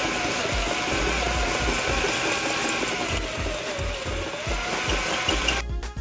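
Electric drill motor running under load on a steel pipe fitting clamped in a vise, with a steady whine and rattle. Its pitch sags and recovers about four seconds in, and it stops abruptly near the end.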